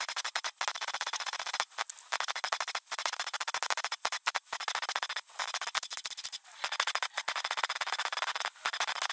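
MIG welder arc crackling as a repair panel is seam-welded into a rusted steel door pillar, laid down in short runs with brief breaks each time the trigger is let go.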